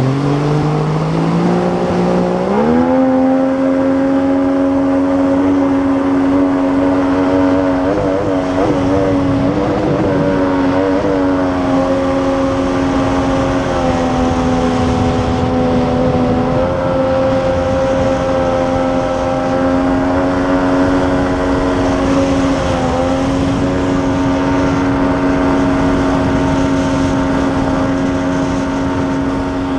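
Outboard water-jet motor of a Fregat 480jet inflatable PVC boat under way, climbing in pitch over the first few seconds, then running steadily at high revs with brief wavers, over rushing water.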